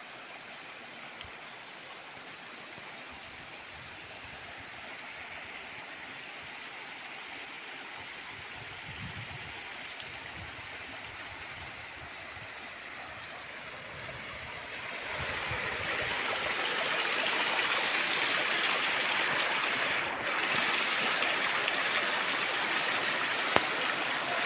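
Glacial meltwater stream running over rocks beneath the snow, a steady rushing that grows louder partway through.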